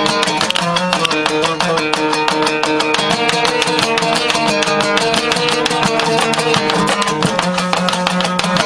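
Long-necked plucked lute strummed fast and continuously, with a steady ringing drone note under the quick strokes.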